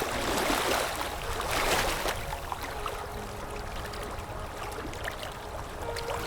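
Sea waves washing in: a wave surges loudly over the first two seconds, then settles into a softer, steady hiss of water.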